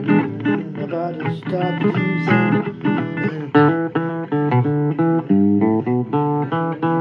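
Blues guitar music: a quick run of picked notes over a low line.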